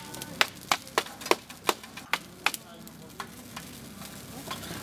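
A run of sharp knocks, about three a second, that stop about two and a half seconds in, followed by a few fainter knocks over a low steady hiss.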